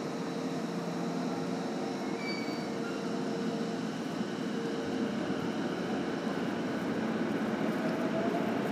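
Steady hum and rumble of a busy underground-style station platform with an electric commuter train standing idle at it, its onboard equipment humming, slowly growing a little louder.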